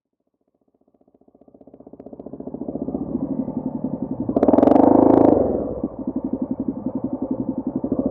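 A vehicle engine running with a fast, even pulsing beat. It fades in from silence over the first few seconds, swells louder about halfway through as if revved, then eases back.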